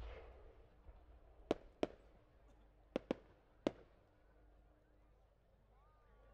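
Aerial fireworks shells. A burst dies away at the start, then five sharp cracks follow over the next few seconds: a pair, another close pair, and a single.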